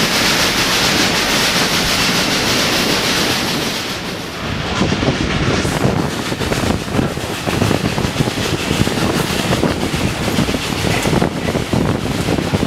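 Ride noise of a moving passenger train heard from between the coaches: wind rushing past with the steady rumble of the cars on the rails. About four seconds in the hiss gives way to a rougher rumble with rapid, irregular knocks.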